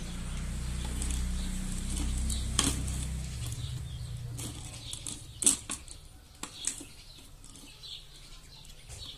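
Dry sticks of a wired twig sleeve rustling and clicking against a plastic jar as hands push and adjust it into place, with a few sharp taps, the loudest about five and a half seconds in. A low rumble fills the first three seconds or so.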